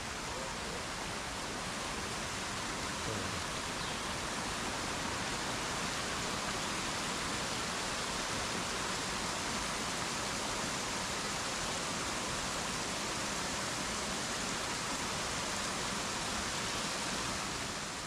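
Small mountain waterfall, its water tumbling in several cascades over boulders into a rocky pool: a steady rushing hiss that fades out at the very end.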